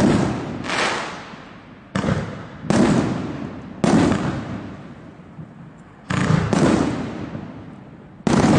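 A 49-shot firework cake with 2-inch tubes firing: about eight loud bangs at uneven gaps of under a second to about two seconds, each one echoing away.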